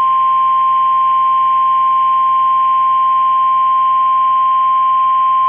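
NOAA Weather Radio 1050 Hz warning alarm tone: one loud, unbroken high tone at a single pitch, heard over faint radio hiss. It is the alert signal that precedes a warning message, here a tornado warning.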